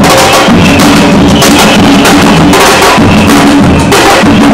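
Loud music with drums and percussion.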